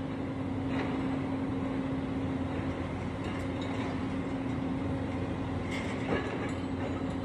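Heavy demolition machinery running steadily: a constant low engine hum under an even mechanical noise, with a faint knock about a second in and another near the end.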